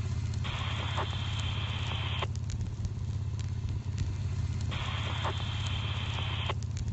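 Brush wildfire burning, with scattered sharp crackles over a steady low rumble. Twice a hissing rush starts abruptly and cuts off about two seconds later.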